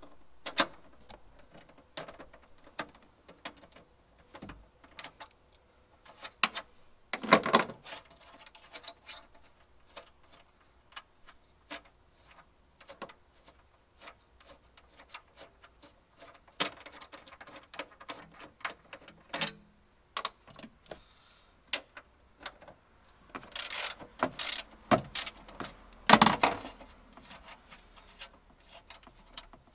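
Scattered clicks and clatter of a hand socket ratchet and metal bracket bolts being undone, with louder bursts of clattering about seven seconds in and again from about 23 to 27 seconds.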